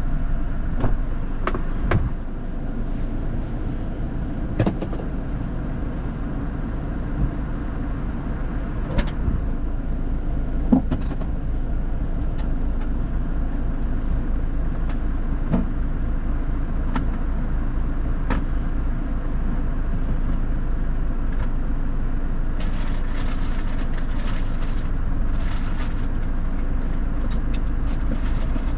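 Off-road 4x4 vehicle engine running steadily at low revs, with scattered knocks and clunks from driving over rough ground. A hiss joins in near the end.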